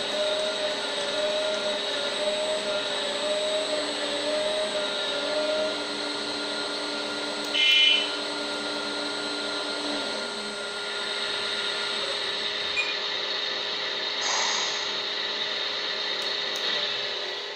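Electric hydraulic pump and motors of a 1/14-scale RC excavator running with a steady whine, its tones shifting and dropping out as the controls change. A brief high squeal comes about eight seconds in.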